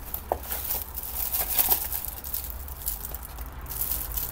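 Packaging being handled: a cardboard product box and a plastic-wrapped item rustling and crinkling, with scattered light clicks and taps.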